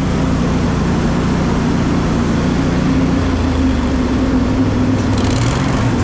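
Engine on a Batco belt grain conveyor running steadily, its note changing about halfway through. A brief hiss joins near the end.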